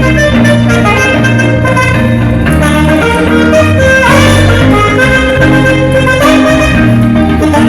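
Saxophone playing a melodic line over an accompaniment with held bass notes, with a note that bends in pitch about four seconds in.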